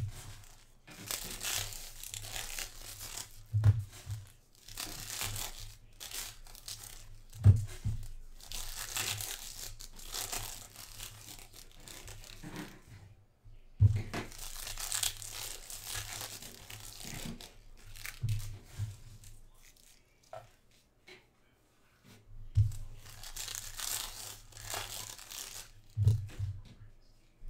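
Foil-wrapped trading card packs being torn open and crinkled in stretches of a second or two, with a short dull knock on the table every few seconds as packs and stacks of cards are set down.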